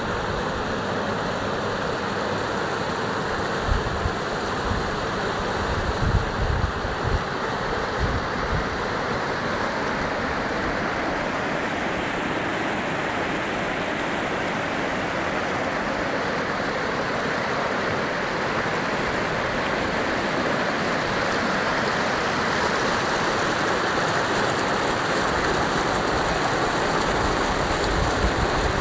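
Rushing flash-flood water in a desert wadi: a torrent of muddy floodwater pouring over rock ledges, a steady roar that grows a little louder near the end. A few low bumps on the microphone come in the first several seconds.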